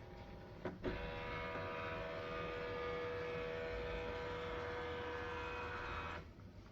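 HP LaserJet M1136 MFP's motor mechanism: a couple of clicks, then a steady whine of several tones for about five seconds that cuts off suddenly.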